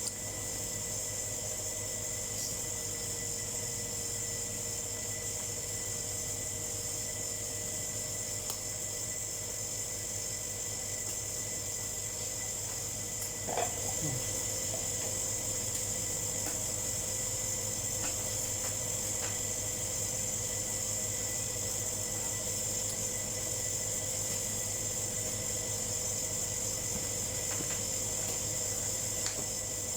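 Steady background hiss with a faint constant hum, and one short sound about halfway through.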